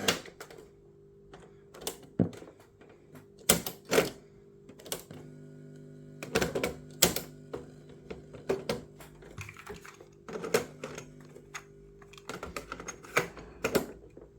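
Irregular sharp clicks and light knocks of hard plastic parts of a vintage radio-cassette recorder being handled, over a faint steady hum.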